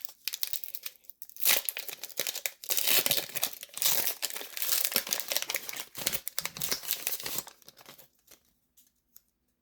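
Foil wrapper of a Pokémon Paradox Rift booster pack crinkling and tearing as it is opened by hand, stopping after about seven and a half seconds.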